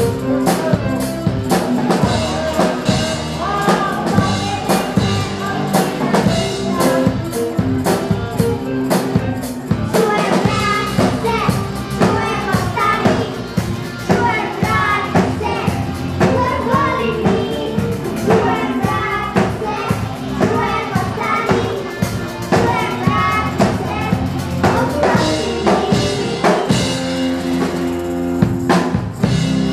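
A rock band playing live: electric bass and drum kit keeping a steady beat, with children's voices singing the melody from about ten seconds in.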